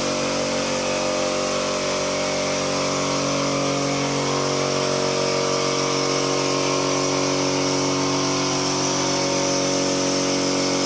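A power tool's electric motor running steadily, with a pitched hum and a hiss over it.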